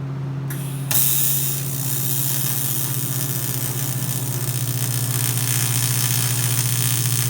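Wire-feed (MIG) welding on aluminum: a steady hissing arc starts about a second in and runs on evenly over a constant low hum.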